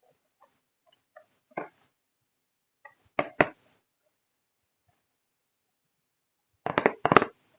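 Plastic parts of a toy slide set clicking and knocking as they are handled and fitted together: a few faint ticks, a single click, a quick pair about three seconds in, and a louder rapid cluster near the end.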